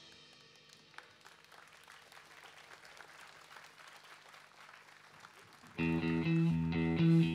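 Faint audience applause after a live rock band's song has ended. About six seconds in, the band starts the next song with loud electric guitar chords.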